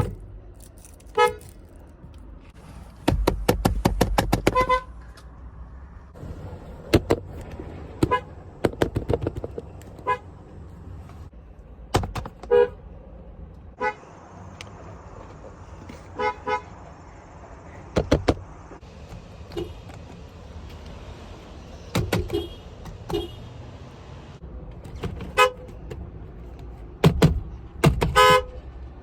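Car horn of a 2021 Volkswagen Atlas SE tooted again and again in short taps. About three seconds in it comes as a rapid run of quick beeps, several a second.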